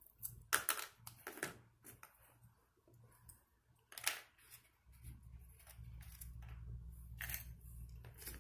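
Scissors cutting through paper drinking straws: several short, crisp snips in the first two seconds and another around four seconds in, followed by a faint low rumble.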